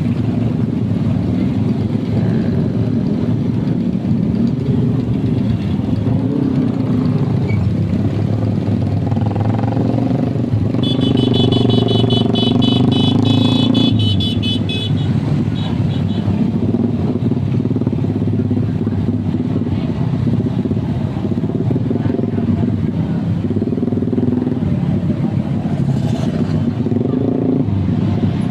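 Engine running through a loud exhaust that crackles and pops continuously like firecrackers. A louder stretch of a few seconds begins about eleven seconds in, with a high pulsing tone over it.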